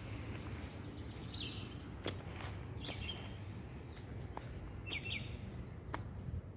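Songbirds giving short chirps about three times over a steady outdoor background hiss, with a few scattered sharp clicks.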